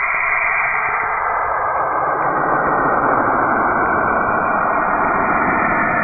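Saturn's electromagnetic emissions converted into sound: a dense, steady hiss that fills out lower down and grows slightly louder over the first two or three seconds, then holds.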